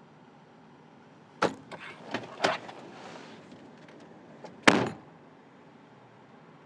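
A door being worked: a run of sharp clicks and knocks as it is handled and opened, then shut with one loud thump about three seconds later.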